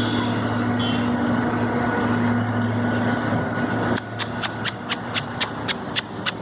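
A vehicle engine running steadily, which cuts off about four seconds in. Sharp, regular clicks at about four a second follow.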